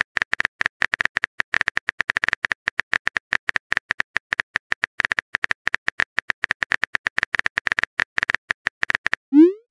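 Simulated phone keyboard typing sound effect: a rapid, uneven run of key clicks, about ten a second, as the next chat message is typed out.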